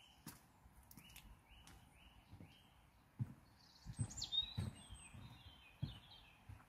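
Wild birds singing in a garden: one bird repeats a short note about twice a second, then another breaks into a varied, high song about four seconds in. Low thuds of footsteps on wet wooden decking come through the second half.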